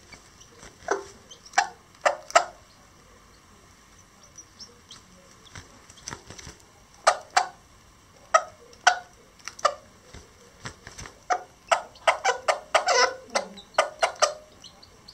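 Lavender Old English Game bantam hen clucking in short, separate clucks, then a quick run of clucks near the end. This is the food call a mother hen gives to draw her chicks to feed.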